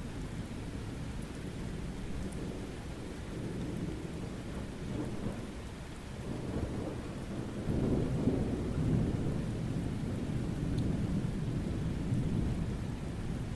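Summer thunderstorm: steady rain with a low rumble of thunder that swells into a louder roll about seven seconds in and keeps rolling.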